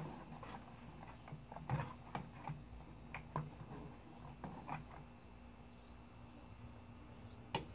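A wooden spoon stirring a watery cookie mixture in a bowl: faint, irregular knocks and scrapes against the bowl.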